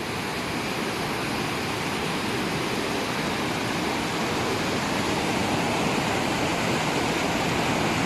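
Muddy floodwater rushing in a fast torrent, a steady noise of churning water.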